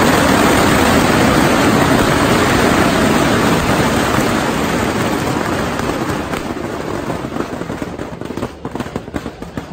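Strings of firecrackers going off in a dense, continuous crackle, thinning out after about six seconds into scattered separate bangs near the end.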